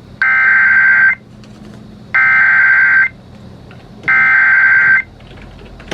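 Three bursts of EAS/SAME digital header data tones, each about a second long with about a second between them. This is the coded header that opens an emergency alert, here a severe thunderstorm warning.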